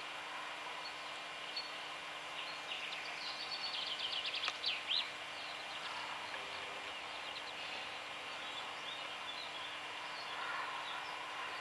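Small birds singing: a burst of quick, high chirps and trills about four to five seconds in, with fainter chirps near the end, over a steady outdoor background hiss.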